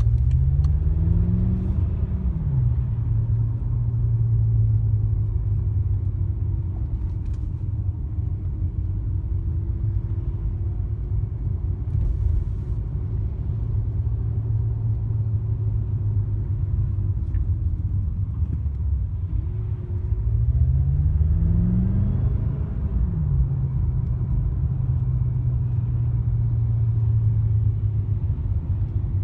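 BMW car running with a steady whistle over the engine and road rumble. Twice the engine pitch rises for a couple of seconds and then drops, once near the start and once about two-thirds of the way through.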